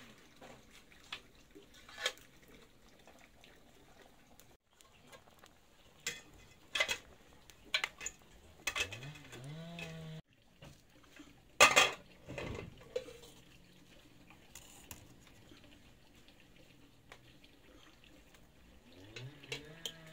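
Scattered clinks and knocks of pots, dishes and utensils being handled, the loudest a little past halfway. A farm animal calls low in the background twice.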